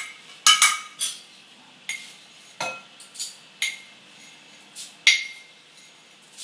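Spoon clinking against a glass jar and glass bowl while scooping dry rolled oats: about ten sharp, irregular clinks, some ringing briefly, the strongest near the start and about five seconds in.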